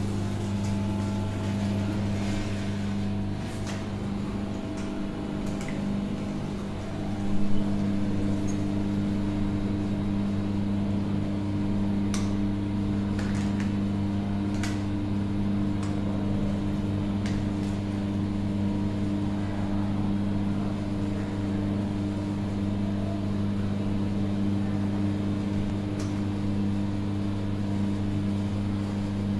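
Electric motor of a stainless-steel sugarcane juice machine running with a steady hum. Occasional light clicks and a louder knock about seven seconds in sit over the hum.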